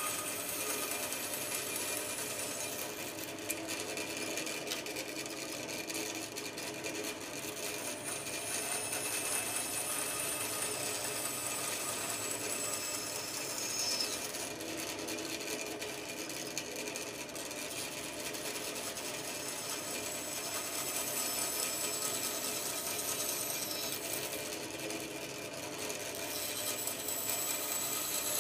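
Bandsaw running steadily while its blade cuts into a small block of timber, making a series of relief cuts.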